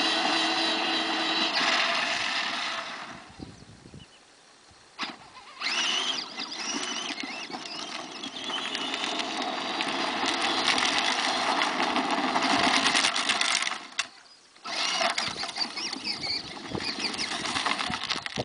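Peg Perego ride-on toy jeep driving on asphalt, its electric drive motors and gearboxes whining at full power. The pitch wavers with speed, and the sound drops away briefly twice, once about four seconds in and once near fourteen seconds.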